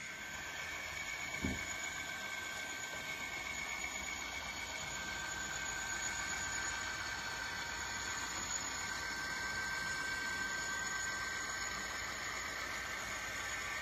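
N scale model freight train, headed by Bachmann Dash 8-40CW diesel locomotives, running along the layout track. A steady whine and hum comes from the running train, with one short knock about a second and a half in.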